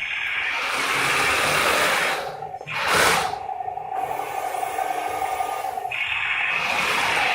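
Heng Long 1/16 scale RC M41A3 Walker Bulldog tank running: its small electric motors and gearboxes whir steadily, with a short loud burst about three seconds in.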